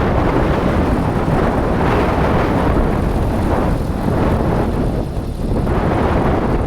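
Strong, gusty wind buffeting the microphone: a loud, low, noisy blast that swells higher with gusts about two and four seconds in.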